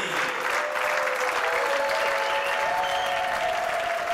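Audience applauding steadily, with a few long held cheers from voices in the crowd over the clapping.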